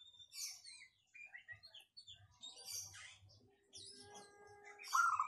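Birds chirping in quick, short, high notes throughout, with a steady lower note near the end and a louder, mid-pitched call about five seconds in.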